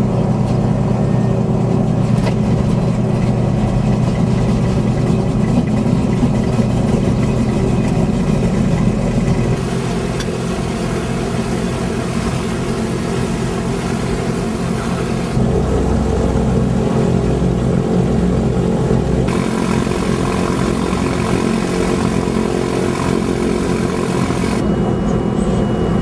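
Twin piston engines of a de Havilland Dove running steadily, heard from inside the aircraft, with abrupt shifts in tone several times.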